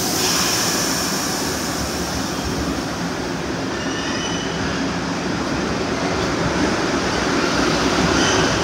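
New York City subway train of R62A cars pulling out of the station and gathering speed: a burst of air hiss right at the start, then the steady rumble and rattle of wheels on the rails, growing a little louder toward the end, with faint high squeals of the wheels.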